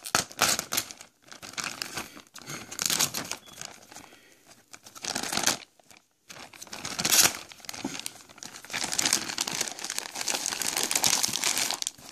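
Plastic DHL Express courier mailer bag crinkling and tearing as it is pulled open, in irregular bursts with a brief pause about six seconds in.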